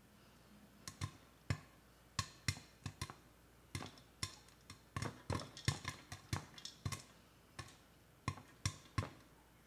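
Popcorn kernels popping in a Ninja Foodi pot under a silicone cover: irregular sharp pops, two or three a second, at the height of popping.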